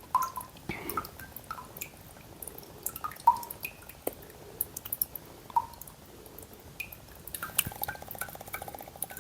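Coconut water draining out of holes punched in the coconut's eyes, in irregular drips and small glugs as air gurgles in through the second hole.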